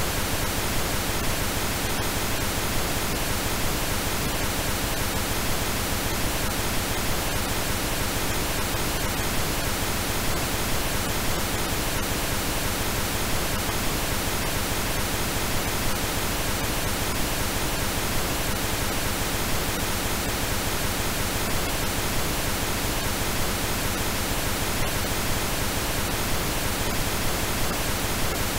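Synthesized pink noise: a steady, even hiss across the whole range, unchanging throughout.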